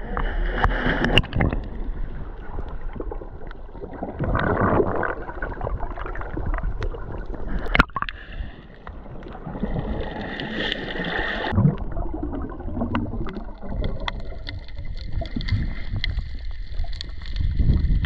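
Water rushing and gurgling around a camera moving in and out of the sea, heard muffled underwater, with one sharp knock about eight seconds in.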